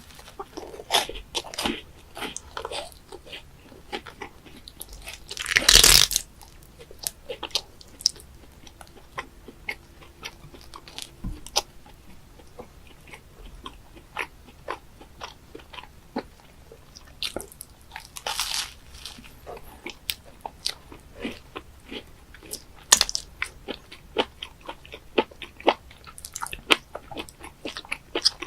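A person chewing pieces of live octopus close to the microphone: wet chewing with irregular sharp smacks and clicks, and louder noisy bursts about six seconds in and again around eighteen seconds.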